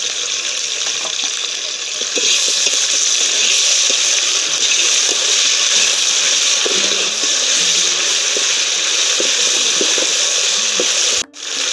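Onions and ginger-garlic paste frying in ghee and oil in a pot: a steady sizzle that grows louder about two seconds in, with faint knocks of stirring.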